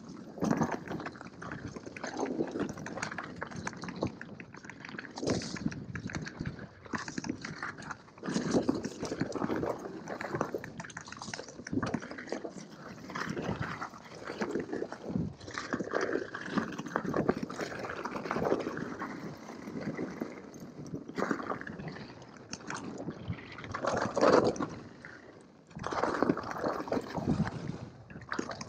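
Mountain bike ridden along a rough dirt trail: tyres rolling over dirt and through muddy patches while the bike rattles and clatters over bumps, in an uneven rush of noise with frequent sharp crackles.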